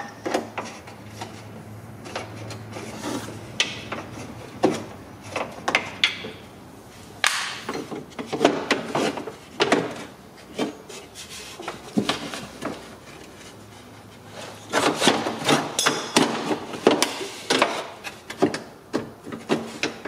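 Irregular clicks, knocks and rubbing of metal parts against the sheet-metal shell of a BMW E46 door as a window regulator is worked into place and its mounting nuts are started. The handling gets busier about a third of the way in and again near the end.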